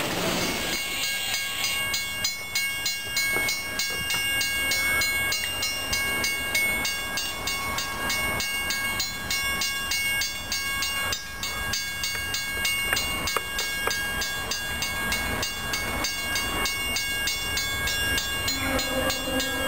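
Grade-crossing warning bells ringing at the railroad crossing, an even, rapid repeating strike over a steady ringing tone, with a faint rumble of rail traffic underneath.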